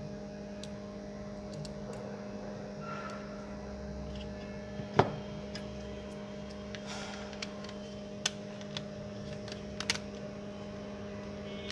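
Sharp plastic clicks and taps as a Nokia phone's circuit board and plastic housing frame are handled and fitted together, the loudest click about five seconds in and a few smaller ones later. A steady electrical hum runs underneath.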